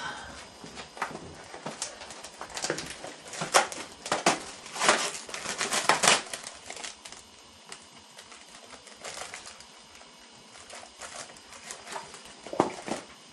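Irregular crinkling and clicking, like paper or a wrapper being handled, busy for the first six seconds and then only scattered clicks.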